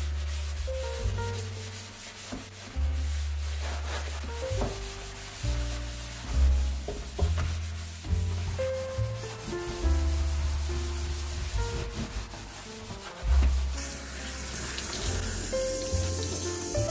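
A scouring sponge scrubbing a stainless steel sink coated in cleaning paste, a run of rough rubbing strokes, over background music with a deep bass line. Near the end the tap is turned on and water runs into the sink.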